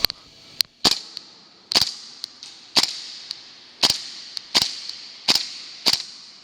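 Airsoft gun firing single shots, about nine sharp cracks spaced unevenly roughly one a second, each with a short ring-out.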